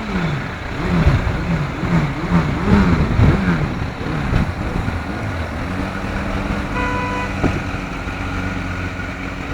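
A car's engine running as it drives through deep floodwater. Its pitch rises and falls quickly over and over for the first few seconds, then settles into a steady drone. A short beep sounds about seven seconds in.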